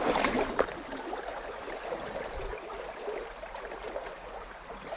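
Small stream flowing: a steady rush and babble of water, a little louder in the first moment.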